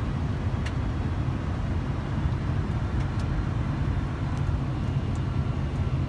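Flight-deck noise of a Boeing 747-400 on final approach with gear and flaps down: a steady low rumble, with a few faint clicks.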